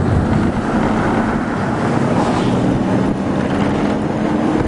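A vehicle driving, its engine and road noise blended with wind buffeting the microphone. About halfway through, a steady engine hum comes up and rises slightly in pitch as the vehicle picks up speed.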